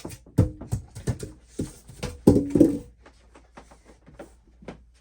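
Handling noise of equipment being moved and set down: a run of knocks and clatters, with two short pitched sounds, the louder one about two and a half seconds in, then only scattered light taps.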